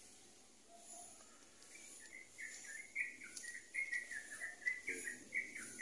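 A bird chirping: a quick, continuous run of short high notes that starts about two seconds in and grows louder, over a faint background.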